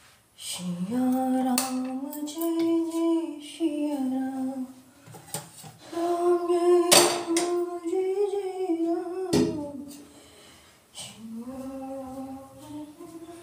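A woman humming a tune in long held notes, phrase after phrase with short pauses, without words. A few sharp clinks of metal kitchen utensils come in between, the loudest about seven seconds in.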